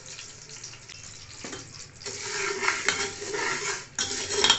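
Sugar poured into melted ghee in a metal pot with a soft hiss, then a slotted steel spoon scraping and stirring the sugar around the pot from about two seconds in, with sharp clinks of spoon on pot near the end.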